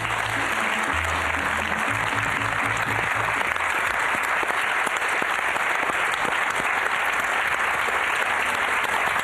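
Large studio audience applauding steadily. Music with low bass notes plays under the clapping for the first three seconds or so, then stops.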